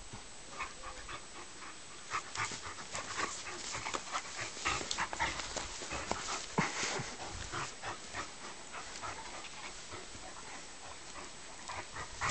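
Two large rough-coated dogs play-fighting: panting and quick short huffs, thickest in the middle of the stretch and thinning out near the end.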